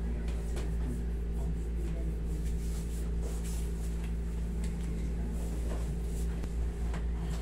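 A steady low hum with several fixed pitches, with a few faint scattered taps and rustles over it.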